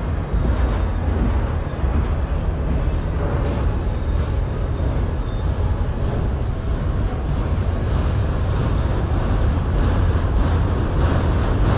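Freight train of multilevel autorack cars rolling past at close range: a steady rumble of steel wheels on the rails, with faint clicks over the rail joints near the end.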